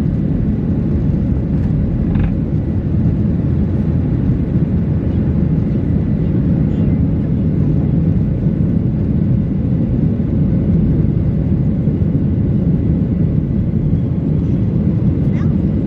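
Boeing 737-800 cabin noise from a window seat over the wing, with its CFM56-7B engines at takeoff thrust through the takeoff roll and initial climb: a steady, loud, low rush with a couple of faint ticks.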